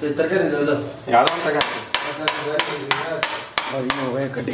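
A metal dough cutter chopping a rolled log of cookie dough into pieces, each cut ending in a sharp tap of the blade on the stone countertop. There are about nine taps, a little over three a second, starting about a second in.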